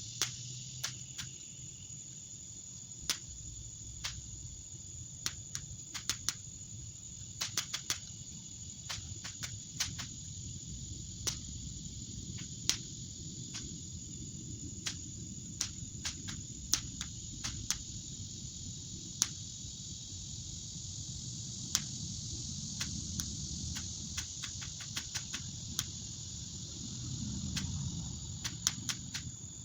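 Sharp pops of a paper-roll cap gun firing irregularly, dozens in all, some in quick runs, over a steady high insect chorus.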